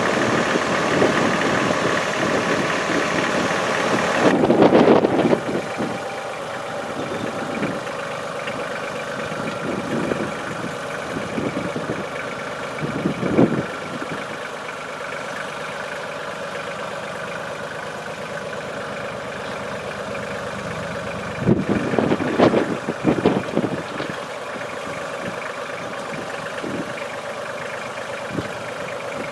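Kubota L3010 compact tractor's diesel engine running at a steady engine speed as the tractor moves about. Louder bursts of noise come about five seconds in and again about three-quarters of the way through.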